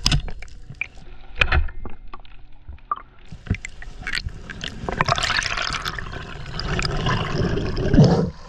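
Underwater sound of a spearfishing dive: a sharp snap of a speargun shot at the start and a few clicks, then a swelling rush of water and bubbles that is loudest about eight seconds in as the diver swims up to the surface.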